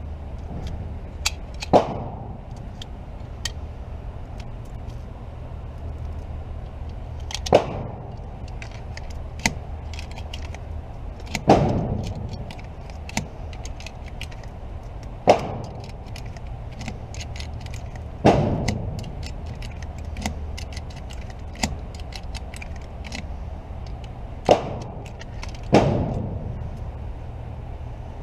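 Single 9 mm pistol shots fired slowly at a shooting range. There are about seven loud shots spaced two to six seconds apart, each with a brief ringing tail, and fainter clicks and pops between them over a steady low hum.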